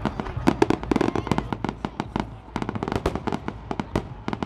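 Fireworks display: aerial shells bursting in a dense barrage of sharp bangs and crackles, several a second.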